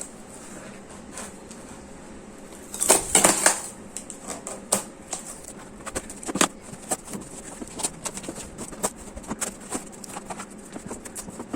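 Clicks, taps and rustling of plastic containers and packaging being handled and pulled apart, with a louder burst of handling about three seconds in and a run of quick small ticks later on.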